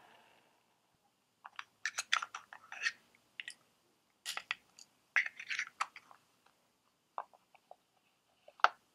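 Small wooden puzzle-box pieces clicking and knocking against each other and the stone slab as they are handled and fitted back into the box. Clusters of light taps come between about 1.5 and 6 seconds in, then a few scattered ticks and one sharper knock near the end.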